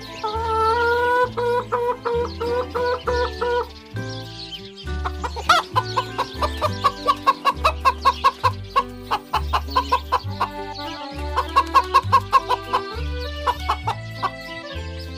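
Chickens clucking, with rapid runs of short clucks, over background music with a steady bass beat.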